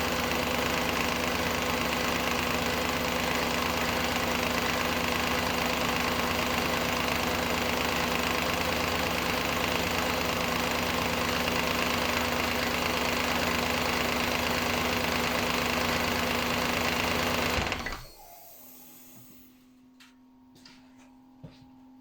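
Audi A8 D2's 4.2-litre ABZ V8 running at idle with a rapid, even knock that the mechanic places under the timing cover. The engine is switched off about 18 seconds in.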